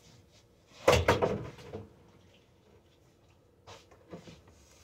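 A short clatter of kitchen things being handled, about a second in, followed by a couple of faint knocks near the end.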